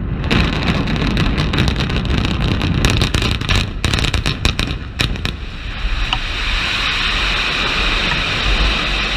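Demolition charges going off in a rapid string of sharp bangs and cracks as a high-rise hotel tower is imploded, for about five seconds. Then a steady rumbling, rushing noise as the tower collapses.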